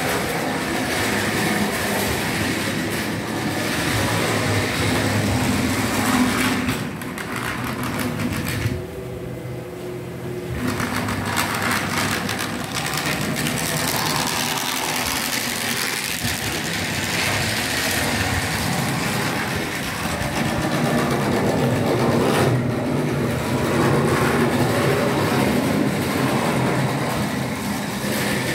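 Model railway train running along its track: a small electric motor whirring and the wheels rattling on the rails, dipping in level for about two seconds around nine seconds in.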